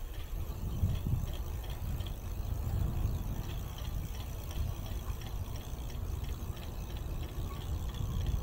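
Low, uneven rumble of a vehicle in motion, heard from on board.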